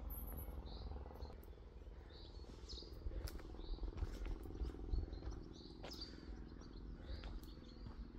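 Faint short bird chirps, repeated about once a second, over a low steady hum, with a few soft clicks.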